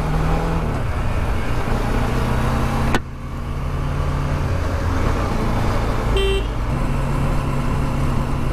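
Bajaj Dominar 400 single-cylinder motorcycle engine running steadily on the move, with wind and road noise on the microphone. The sound breaks off sharply about three seconds in and resumes. A brief horn toot comes about six seconds in.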